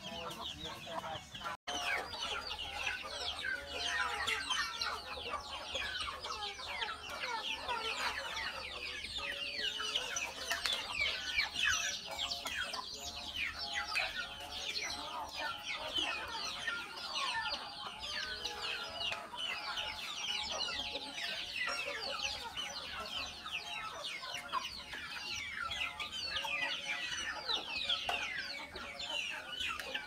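A flock of chicks peeping continuously in short, high, falling chirps, with hens clucking now and then, as they feed. The sound breaks off for an instant about one and a half seconds in.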